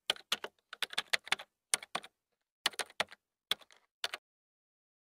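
A run of quick, irregular clicks, like typing on a keyboard, over dead silence, stopping about four seconds in.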